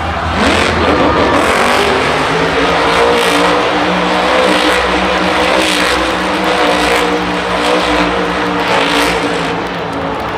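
Son-uva Digger monster truck's supercharged V8 held at high revs while the truck spins a sidewall donut on two wheels, the engine note wavering up and down with a surge about once a second.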